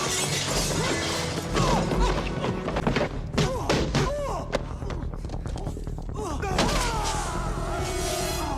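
Action film soundtrack: music mixed with repeated thuds and sharp impacts.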